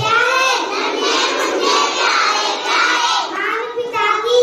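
A group of children chanting or reciting loudly together in high voices.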